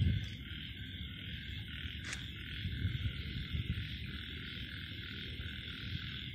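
Steady, high-pitched night-time chorus of calling animals, with a low rumble underneath and a single click about two seconds in.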